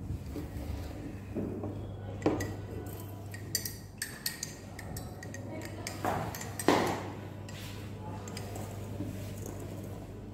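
Glass lab dishes being handled on a table: a few light clinks and knocks, the loudest about seven seconds in, over a steady low hum.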